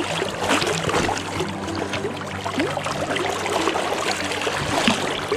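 River current rushing and splashing around a wading angler's legs, a steady wash of moving water with small splashes throughout.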